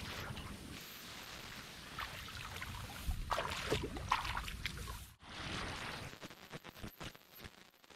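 Muddy paddy-field water splashing and sloshing as hands work rice seedlings in it, with a cluster of louder splashes about three to four seconds in. After a break a little past halfway, a quick run of short splashes as seedlings are pushed into the flooded mud.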